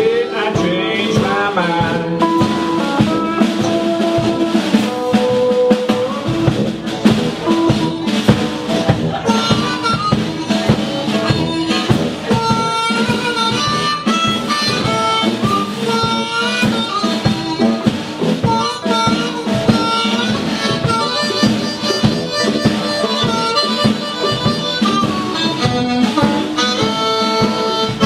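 Blues harmonica (blues harp) solo played cupped against a vocal microphone, with bending, sustained notes. It runs over the band's acoustic and electric guitars, tuba and drums in a live acoustic blues arrangement.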